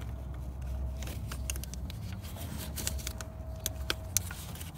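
Scattered small clicks and scrapes of a pick working a metal C-clip out of the transmission cooler line fitting at the radiator, over a steady low rumble.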